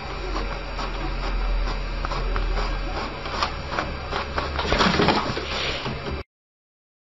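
Desktop inkjet printer running, with a steady hum and a regular clicking of the print-head carriage and paper feed. There is a louder rasping stretch about five seconds in, and then the sound cuts off suddenly.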